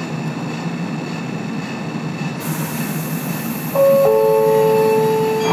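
Inside a Man'yōsen De7070 tram running on the line, with the steady rumble and hum of its old-style nose-suspended traction motors and wheels. About four seconds in, the onboard announcement chime sounds two held notes, the second lower.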